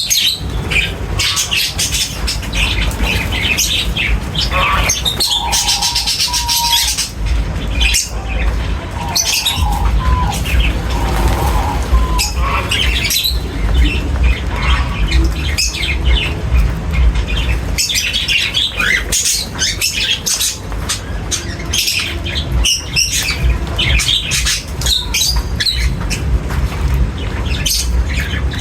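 A flock of birds chirping and squawking, many short calls overlapping in a busy, continuous chatter over a steady low rumble.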